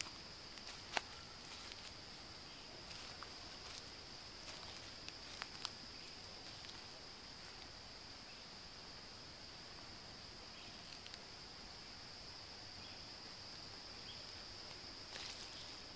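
Insects singing in a steady, high-pitched, unbroken chorus, with a few soft clicks near the start and about five seconds in.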